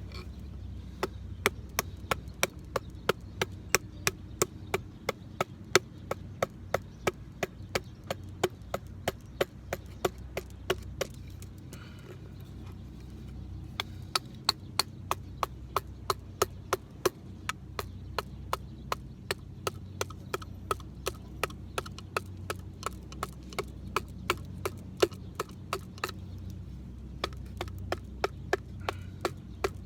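A Morakniv Garberg knife working firewood: a steady run of sharp wooden knocks at about three to four a second, with a short pause about a third of the way in.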